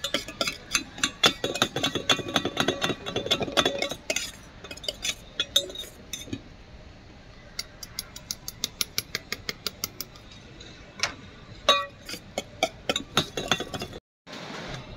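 Steel ladle clinking and scraping against a stainless steel pot as sweet corn is stirred: a dense run of clinks for the first four seconds, then a quicker, more even series of metal taps, and more clinks a little later.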